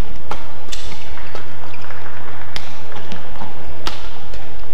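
Badminton rackets striking a shuttlecock in a fast doubles rally: several sharp hits spaced about a second apart, over a steady low hum.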